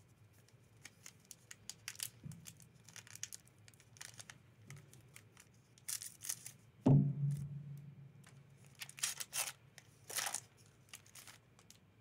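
Scissors cutting open a trading-card booster pack, its wrapper crinkling and tearing in many short crackles. A single louder thump about seven seconds in.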